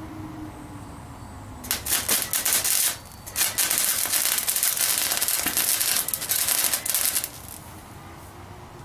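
Electric welder crackling in two runs, the first about a second long and the second about four seconds, tack-welding a steel car body panel.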